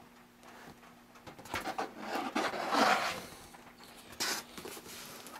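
Cardboard box and packing being handled, with rustling and scraping. It is busiest from about one and a half to three seconds in, with one short, sharp scrape just after four seconds.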